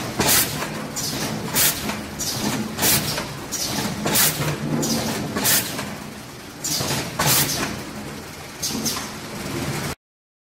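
A 5-gallon polycarbonate bottle decapping machine running, with a steady low machine hum and a short sharp burst roughly every second and a quarter as bottles cycle through the cap-removal head. The sound cuts off abruptly near the end.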